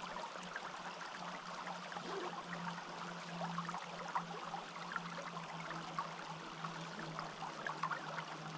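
Forest stream flowing, with steady trickling and bubbling water and a constant low tone underneath.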